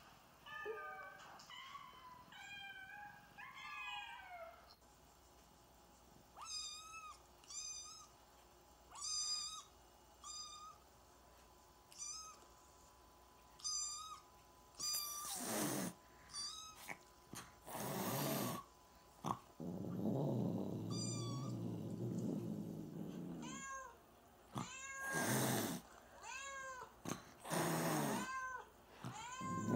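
Cats and kittens meowing again and again in short high-pitched cries, played through a tablet's speaker, with a few loud short noisy bursts and a longer, lower cat cry about two-thirds of the way in.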